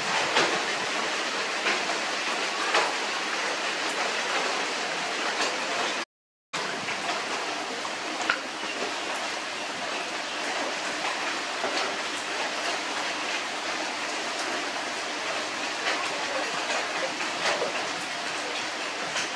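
Steady hiss of heavy rain, with scattered faint clicks and taps on top. The sound cuts out completely for about half a second around six seconds in.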